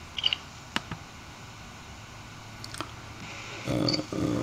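A few sharp, separate clicks of a computer mouse over a low steady background hum. Near the end a louder, steady hum with a pitch starts up.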